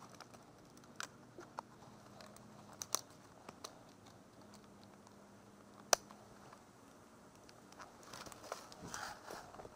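A few sharp clicks and ticks over a quiet background, the loudest about six seconds in, then footsteps crunching over dry leaves and twigs on a forest floor from near the end.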